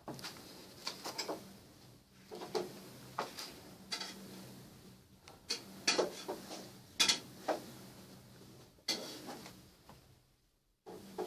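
Irregular clinks, knocks and short scrapes of kitchenware being handled, several louder knocks about six and seven seconds in, over a faint steady low hum.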